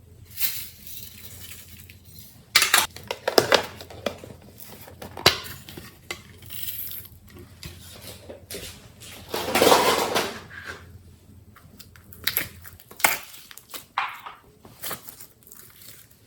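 Slime being mixed and handled: irregular sharp sticky clicks and pops, with a longer, louder stretch about ten seconds in.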